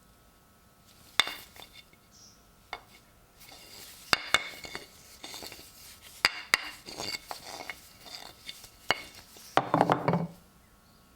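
Small metal parts and tools being handled on a workbench: a series of irregular sharp clinks and taps, some ringing briefly, with a denser clatter about nine and a half seconds in.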